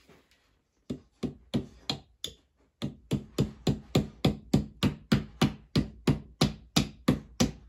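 Hammer knocking fittings into a flat-pack furniture panel: a few separate taps about a second in, then a steady run of blows, about three a second.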